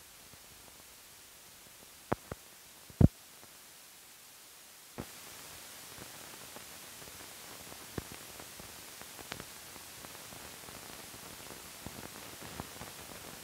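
Hiss and scattered clicks and pops from the soundtrack of blank, dust-flecked film leader running out. The loudest pop is about three seconds in, and the hiss steps up about five seconds in.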